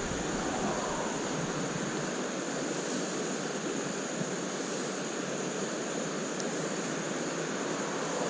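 Steady rush of creek water running over rocks, an even noise with no break.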